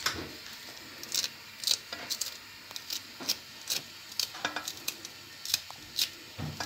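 A knife cutting through a bunch of fresh herbs held in the hand over a pot, making short crisp clicks and snips at an irregular pace, about two a second.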